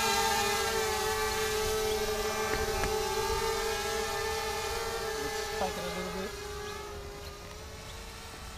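Diatone 230 mm mini quadcopter's four RCX 1806 brushless motors and propellers hovering with a steady high whine, which fades gradually as the quad flies off.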